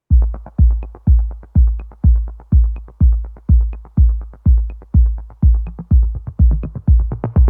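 Electronic intro music: a heavy drum-machine kick beating steadily about twice a second, with light high ticks about once a second.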